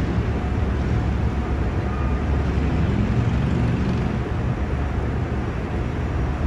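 Steady low rumble of city traffic with wind buffeting the microphone.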